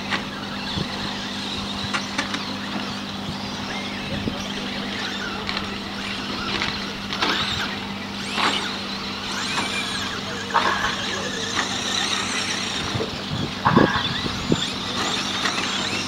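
Brushless electric motors of RC short-course trucks whining up and down in pitch as they race over a dirt track. There are several sharp knocks, the loudest about two-thirds of the way through, over a steady low hum.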